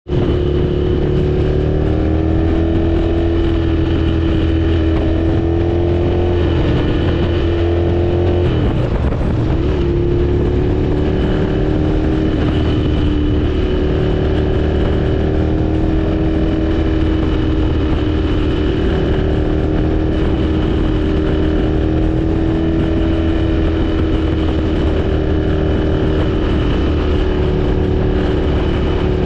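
Motorcycle engine running steadily at highway cruising speed, heard from the rider's seat behind the windscreen, over a constant rush of wind and road noise. The engine note wavers and breaks briefly about nine seconds in, then settles again.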